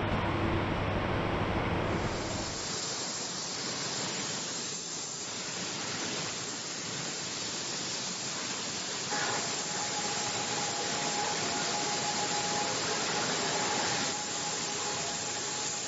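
Steady hiss of a robotic spray-painting booth, from the spray guns and the booth's air flow, with a faint steady tone joining about nine seconds in.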